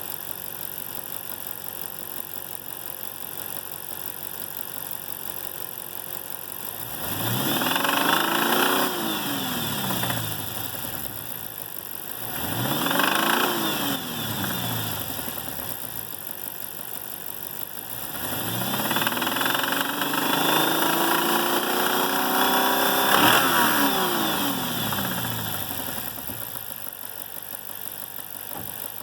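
Chrysler 6.1 Hemi V8 idling, then revved three times, the third rev longer and held before dropping back to idle. It carries a knock that the owner cannot pin down as spark knock, lifter tick, wrist pin or rod knock.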